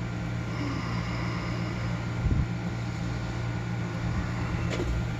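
A steady low hum, with a brief low thump a little over two seconds in.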